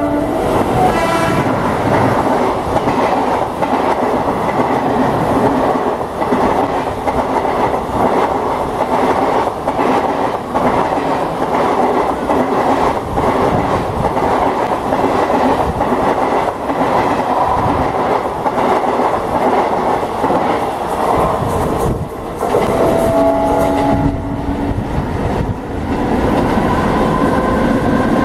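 Long passenger train hauled by an electric locomotive running through a station at speed: a steady rumble and clatter of coaches over the rails. A train horn sounds briefly about five seconds before the end.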